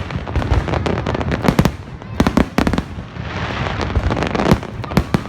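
Fireworks display: aerial shells bursting in a rapid run of loud bangs, with a stretch of dense crackling about three seconds in.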